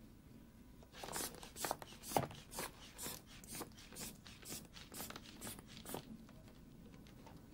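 Rubber inflation bulb of a blood-pressure cuff squeezed again and again to pump up the cuff, each squeeze a short puff of air, about two a second for some five seconds.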